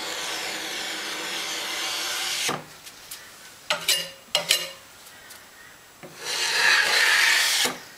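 A putty knife scraping along a plywood seam, smoothing acrylic gap sealer into the joint: one long scrape lasting about two and a half seconds, then a second, louder one about six seconds in, with a few brief quieter sounds between.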